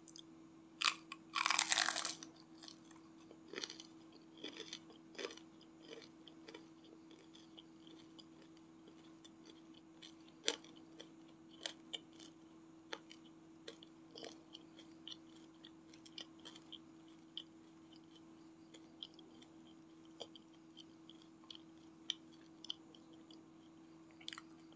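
Close-up crunchy bite into crispy battered fried gorengan, with a loud crunch twice in the first two seconds. Then steady chewing with many small crunches, over a faint steady low hum.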